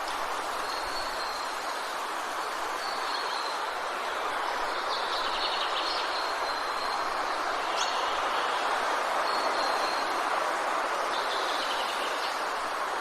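Steady wind noise with songbirds calling over it: short high whistled notes every second or two, and quick chirping trills about five seconds in and again near the end.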